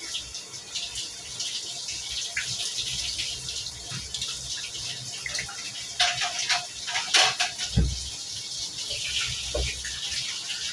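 Tap water running into a stainless steel sink while pieces of meat are rinsed by hand in a mesh strainer, with a few sharp knocks and splashes about six to eight seconds in.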